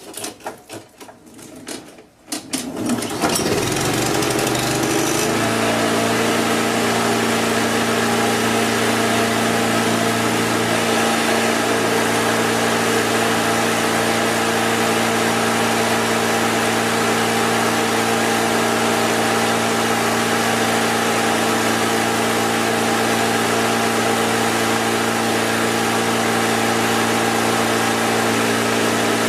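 Lawn mower engine sputtering unevenly for about three seconds, then settling into a steady run at an even pitch.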